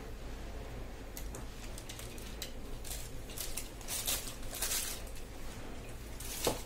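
Thin clear plastic packaging bag crinkling and rustling in the hands in scattered bursts, with a sharp knock near the end.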